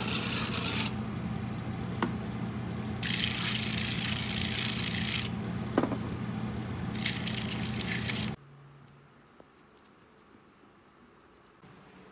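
Shoe finishing machine running with a steady motor hum while a leather sole is pressed against its sanding roller in three bursts of grinding. The machine is switched off about eight seconds in, its hum fading briefly before the shop goes quiet.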